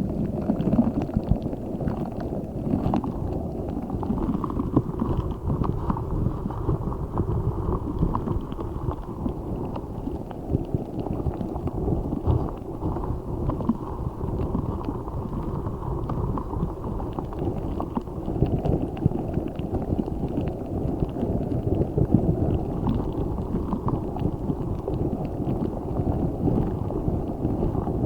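Giant spiky Orbeez-filled squishy ball being squeezed and kneaded close to the microphone: a continuous low, squelching squish.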